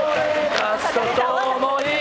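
Large crowd of football supporters singing a chant together in unison, in held notes that step and slide in pitch.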